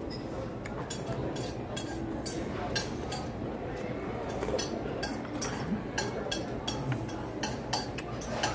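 A metal spoon clinks repeatedly against an earthenware pot and dishes as doenjang stew is spooned up and sipped, over a steady background murmur.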